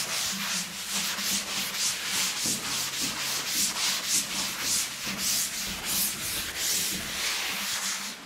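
A chalkboard being wiped clean with a duster: quick, repeated back-and-forth rubbing strokes of the pad on the board's chalky surface, stopping near the end.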